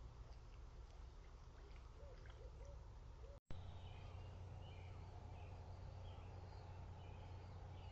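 Faint night-time outdoor ambience: a steady low hum and hiss with a few short, low hoot-like calls. The sound cuts out for an instant about three and a half seconds in, then faint high chirping calls follow.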